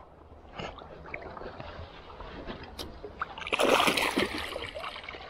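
Hooked brown trout thrashing at the surface, a loud splash about three and a half seconds in as it is brought to the landing net, after a few quieter seconds of small water sounds.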